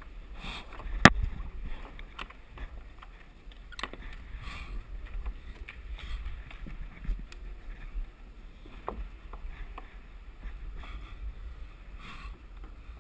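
Wind rumble on the microphone, with a climber's hard breathing and scattered clicks and scuffs of climbing gear and hands on the artificial wall, the loudest click about a second in.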